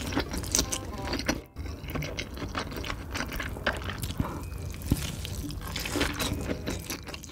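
Close-miked chewing and biting into a thick slab of roasted pork belly: wet mouth sounds with many irregular sharp clicks and smacks, dropping out briefly about a second and a half in.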